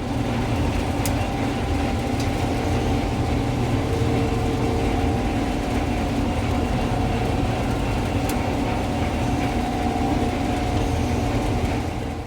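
Heavy farm machinery engine running steadily at a constant speed, with a deep, even rumble and a faint steady hum.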